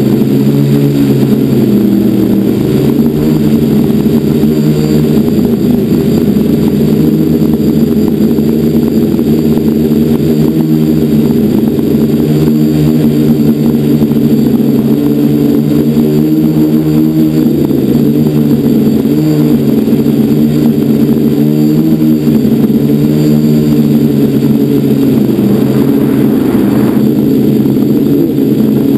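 Quadcopter's electric motors and propellers humming loudly, heard from the camera mounted on the quad. Several close pitches waver up and down through the flight.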